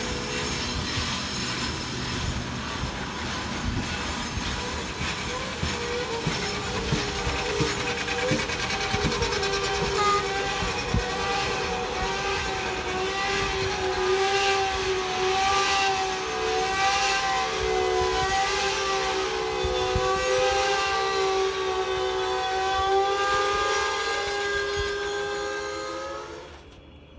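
Loaded freight wagons rolling past with wheels clicking over the rail joints, under a sustained, steady wheel squeal with several tones held together. It all cuts off suddenly near the end.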